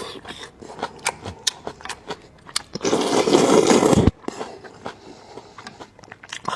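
Close-miked eating of spicy noodles: wet chewing and mouth clicks throughout, with one loud slurp of noodles lasting about a second past the middle that cuts off sharply.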